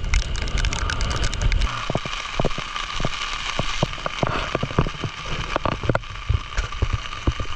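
Strong wind buffeting the microphone with a low rumble for the first second and a half or so, then heavy rain with many sharp drop taps close to the microphone.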